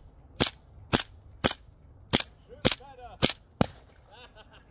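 Airsoft pistol firing seven sharp shots at a steady pace of about two a second, with a person's short cries between the later shots.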